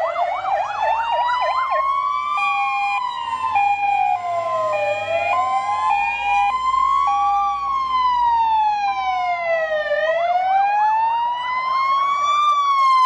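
Several emergency-vehicle sirens sounding together, a fire engine among them. A slow wail rises and falls about every two and a half seconds throughout. A fast yelp joins it at the start and again near the end, and a two-tone hi-lo alternates from about two to seven seconds in.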